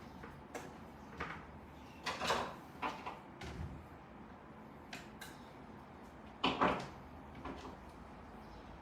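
Irregular clicks, taps and short scrapes of hands and tools working on the computer, with louder clusters about two seconds in and about six and a half seconds in.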